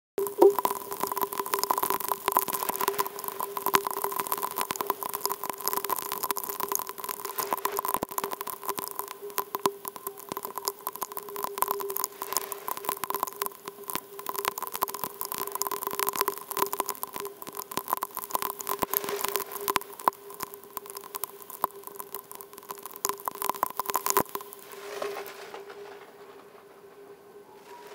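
Raindrops striking a GoPro's housing, sped up tenfold into a dense crackle of fast ticks over an even hiss, with a steady hum underneath. The crackle thins out and gets quieter near the end.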